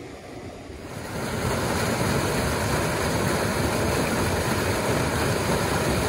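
Rushing water of a small stream cascade pouring through a rock channel: a steady, loud rush that comes in about a second in.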